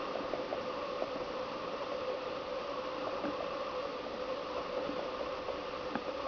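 Woodpecker tapping into a pine trunk: scattered, irregular light taps over a steady hiss with a faint hum.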